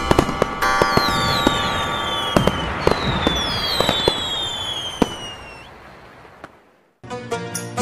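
Fireworks: several whistles sliding down in pitch, sharp bangs and a crackling hiss, fading away. Music comes in near the end.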